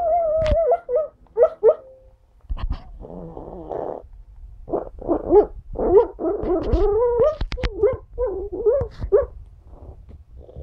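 Pug whimpering, yipping and giving muffled woofs in its sleep while dreaming: wavering whines that rise and fall, with a snoring breath about two and a half seconds in.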